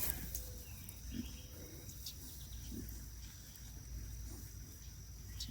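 Pigs feeding at a trough, grunting faintly now and then over a steady high-pitched hum.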